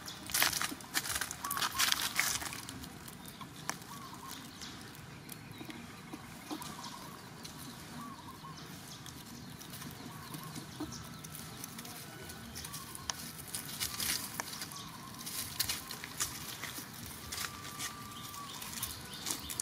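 Dry leaf litter crackling and rustling as macaques move over it, loudest in the first two seconds and again later on. Short faint chirping animal calls scattered through it, with one longer steady call near the end.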